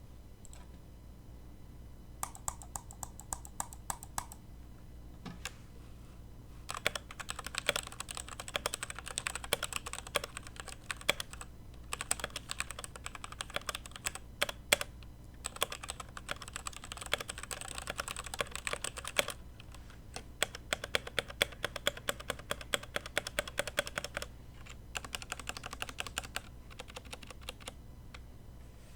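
Typing on an E-Yooso Z11 mechanical keyboard fitted with lubed Cherry MX Red linear switches: rapid keystrokes in six bursts of a few seconds each, with short pauses between.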